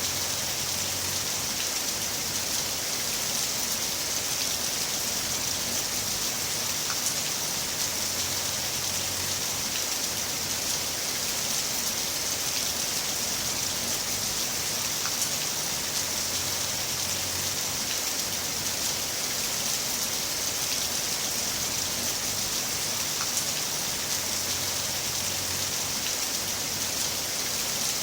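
Heavy rain falling steadily: a dense, even hiss of drops with no letup.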